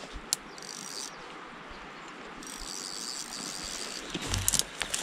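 A high, even insect-like buzz in two stretches over steady outdoor hiss, with a few knocks and thumps near the end.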